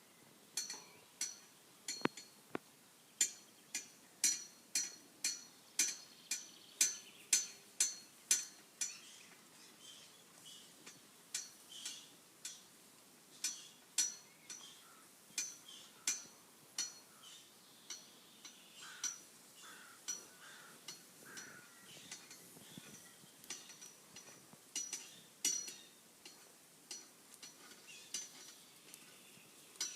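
Highland cattle scratching their necks against metal, giving a run of sharp ringing metallic clinks, about two a second at first, then sparser and uneven.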